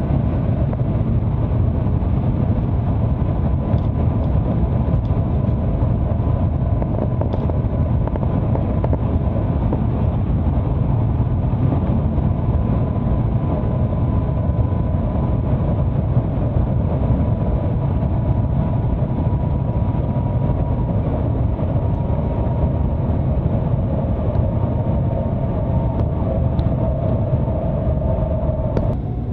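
Shanghai Maglev train running at high speed, heard from inside the passenger cabin: a steady, loud low rumble of air and body noise, with a faint whine above it that sinks slowly in pitch.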